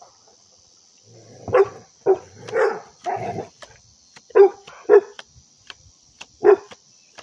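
A dog barking: about seven sharp barks in irregular bursts, starting about a second and a half in.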